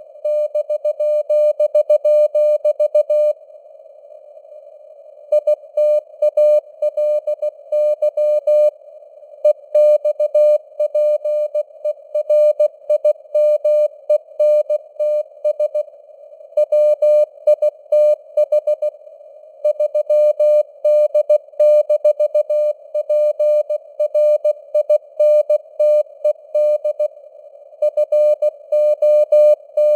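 Morse code sent at 16 words per minute: a steady mid-pitched tone keyed on and off in rapid dots and dashes, with longer pauses between words. It sounds over a faint hiss of simulated radio noise.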